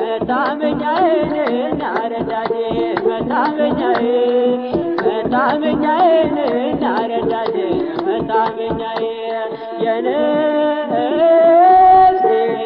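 Ethiopian Orthodox mezmur, an Amharic hymn: a man singing over a regular drum beat and sustained instrumental accompaniment, holding a long note near the end.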